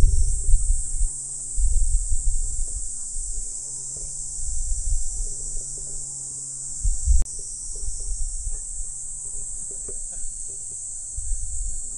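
Steady high-pitched chorus of insects, with wind buffeting the microphone in uneven gusts, strongest near the start and around seven seconds in. There is a single sharp click about seven seconds in.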